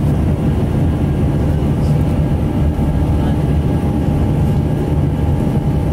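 Cabin noise inside an Airbus A319 airliner climbing out after takeoff: the jet engines and the air rushing past the fuselage make a loud, steady low drone, with a faint steady hum above it.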